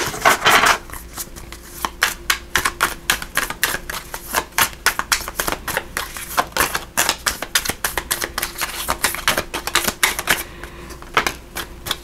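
A deck of tarot cards shuffled by hand: a long run of quick, dry card clicks, several a second.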